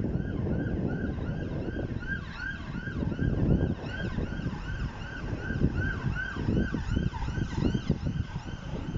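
Level crossing audible warning (yodel alarm) sounding while the barriers are down, a rising-and-falling tone repeating just over twice a second, with more than one alarm slightly out of step. This signals that a train is approaching. Wind buffets the microphone underneath.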